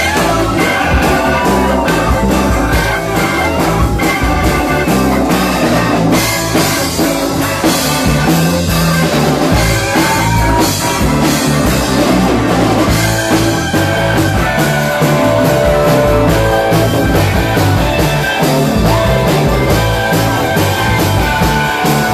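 Rock band playing live and loud, with guitar over a steady drum-kit beat.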